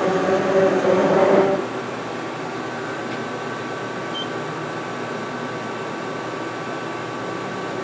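Axis servo drives of a DMG Mori Dura Vertical 635 Eco CNC machining center whining steadily as the machine homes its axes, the whine stopping about a second and a half in. After that the idle machine's steady hum carries on, with faint high tones.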